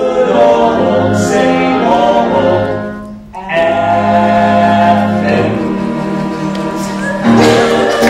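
Singing from a live stage musical: voices holding long notes in harmony over an instrumental accompaniment, in two phrases with a brief break a little over three seconds in and a louder entry near the end.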